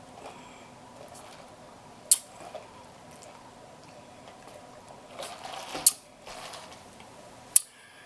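A person drinking sweet tea, with quiet sips and swallows and three sharp clicks spaced a few seconds apart.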